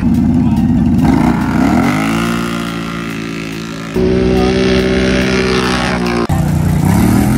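ATV engines revving hard and accelerating away in a drag race, the pitch climbing and then holding steady. The sound changes abruptly twice, about four and six seconds in.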